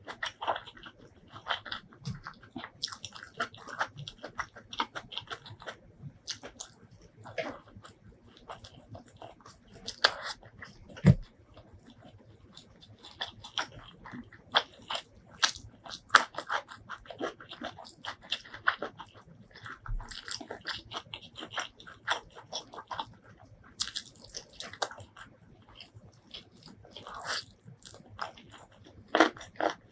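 Close-miked chewing and wet mouth sounds from eating spicy chicken biryani with the fingers: an irregular run of smacks, clicks and soft crunches, a few of them louder.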